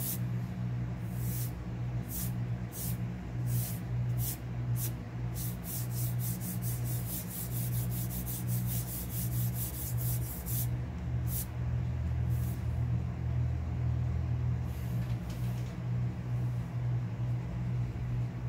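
Colored pencil scratching on paper in quick back-and-forth shading strokes, coming faster to several a second, then a few scattered strokes about halfway through before stopping, over a steady low hum.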